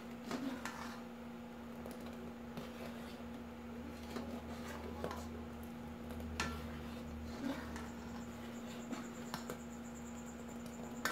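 A ladle stirring agar dissolving in boiling water in an aluminium pot, with light, irregular scrapes and taps against the pot, over a steady low hum.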